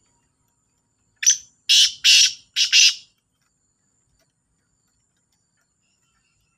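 Black francolin calling: one harsh, grating call of four rasping notes over about two seconds. The first note is short and the last three are longer and evenly spaced.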